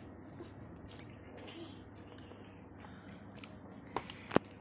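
A few light clicks and taps against a quiet background, one about a second in and two sharper ones near the end.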